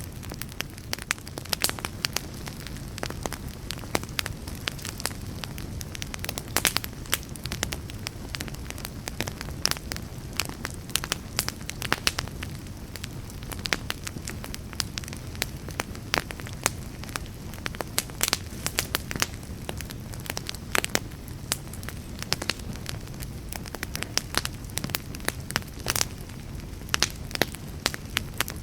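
Wood fire burning with a steady low rush of flames and frequent irregular sharp crackles and pops.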